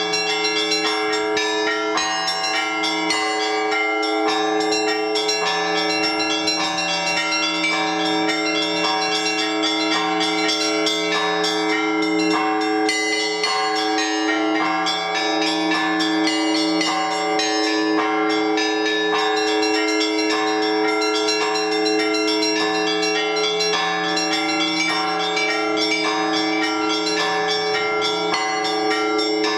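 Orthodox church bells rung together by hand in a continuous peal for the Divine Liturgy. Many smaller bells strike in a quick, steady pattern over the unbroken ringing hum of the larger bells.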